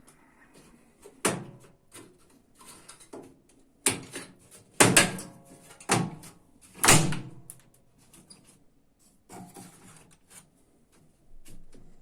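A series of sharp knocks and clanks on a washing machine's sheet-metal cabinet and parts, about five loud ones in the first seven seconds, some ringing briefly, then quieter rattling.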